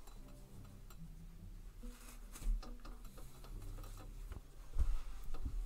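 Cloth-handling sounds as a sock is turned inside out on a cloth-covered table, with a few dull knocks on the table: one about two and a half seconds in and two near the end.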